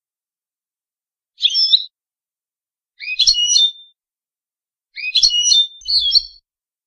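A caged European goldfinch singing Shami-style song, the kind played as a tutor song for young goldfinches to learn. It gives three short, quick, high twittering phrases with silent pauses between them; the last phrase is the longest.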